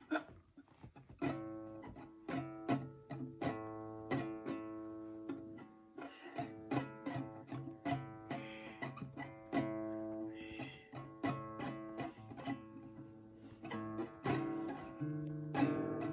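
Acoustic guitar strummed in uneven strokes, about one or two a second, ringing on much the same chord throughout, with a brief pause about six seconds in.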